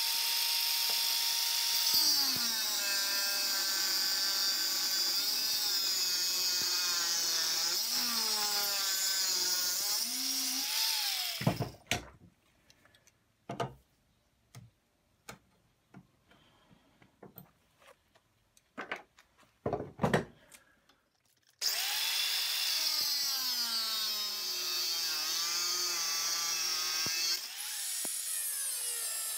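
Angle grinder fitted with a thick disc cutting into aluminium plate. Its whine sags and recovers in pitch as the disc loads up in the cut. About eleven seconds in the grinder stops, and a stretch of sharp clicks and knocks follows. The grinder starts again about 22 seconds in and carries on cutting.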